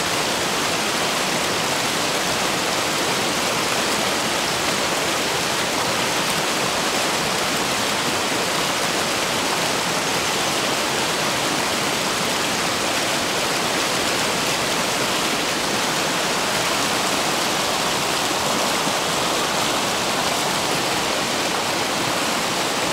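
Fast mountain river rushing past, a steady, even noise of flowing water with no let-up.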